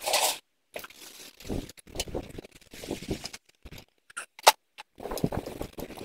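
Scraping and knocking of a tire and steel rim being worked onto a manure spreader's wheel hub, with one sharp metal clink about four and a half seconds in as the lug nuts are started by hand.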